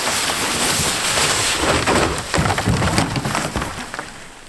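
A kayak skidding and scraping over dirt and loose gravel during a wipeout, with a dense patter of small stone clicks; it dies down near the end.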